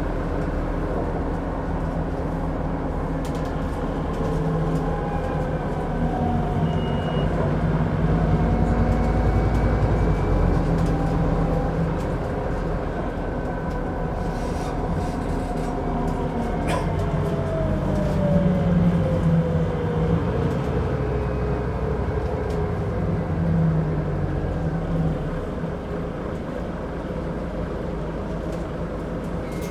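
Scania Citywide city bus heard from inside the passenger cabin on the move: a steady diesel engine and drivetrain hum. A whine slides down in pitch around the middle, and there is a single sharp click.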